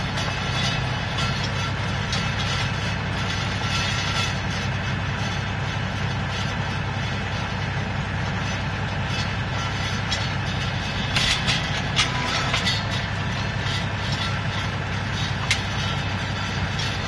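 LS XR3140 compact tractor's diesel engine running steadily, driving a County Line PTO post hole auger as it bores into soil. The auger rig jostles around and makes all kinds of noise, with a few sharp knocks about eleven to thirteen seconds in and again near fifteen and a half seconds.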